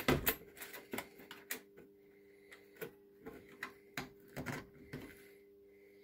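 Irregular light clicks and knocks from small objects being handled on the layout's benchwork, busiest in the first second and stopping about five seconds in, over a faint steady hum.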